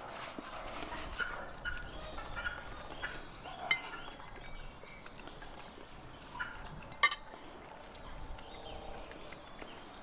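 Tableware clinking at a meal table: two short sharp clinks, about a third of the way in and again past the middle, over faint scattered background sounds.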